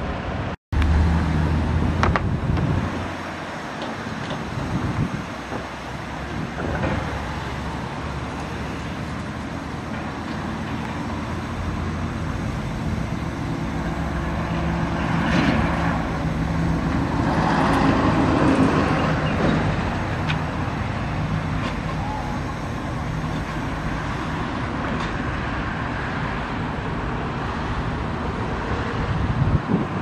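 Steady engine running low under a bed of passing road traffic, with a brief total dropout near the start.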